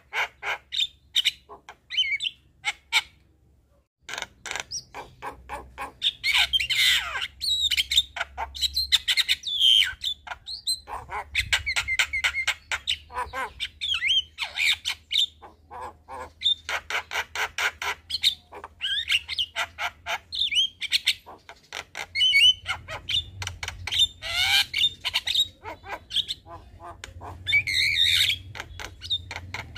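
Javan mynas calling: fast runs of short repeated chattering notes mixed with harsh squawks and whistled glides, with a brief pause about three seconds in.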